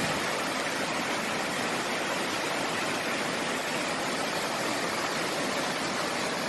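Tiered waterfall cascading over rocks: a steady, unbroken rush of falling water.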